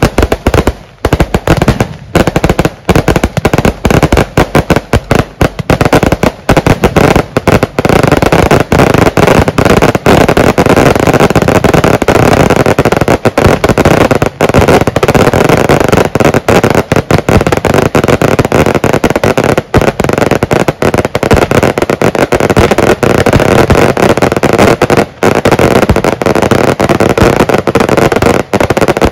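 A long string of firecrackers going off in rapid, continuous succession, very loud, with brief gaps now and then.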